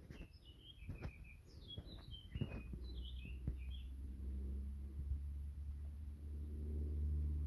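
Birds chirping in short high notes for the first three seconds or so. From about three seconds in, a low steady hum builds to its loudest near the end.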